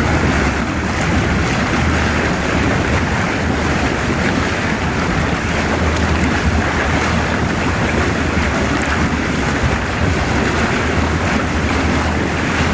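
Jacuzzi water churned by its jets, a steady loud rush of bubbling water.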